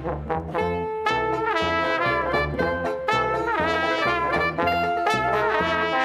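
Jazz music led by trumpet and trombone, over a steady beat.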